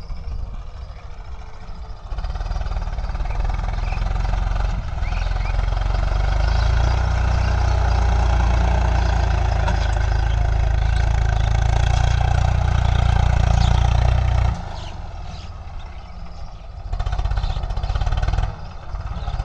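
Diesel farm tractor engine running steadily under load as it pulls a cultivator through ploughed soil, growing louder as it comes close and dropping off sharply about three-quarters of the way through, then briefly rising again near the end.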